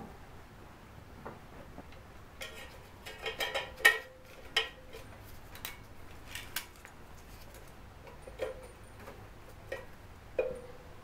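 Metal hand tools clicking and clinking as a ratchet and socket work the flywheel bolts: a quick flurry of clicks and clinks a few seconds in, then single clinks about every second, some with a short metallic ring.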